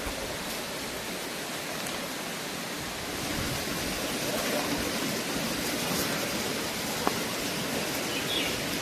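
Waterfall water rushing in a steady hiss that grows a little louder about three seconds in, with one sharp click near the end.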